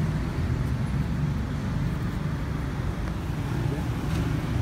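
Isuzu Panther's four-cylinder diesel engine idling steadily.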